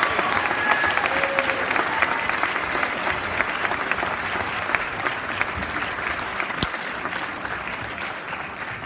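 Audience applauding: dense clapping that slowly dies down toward the end.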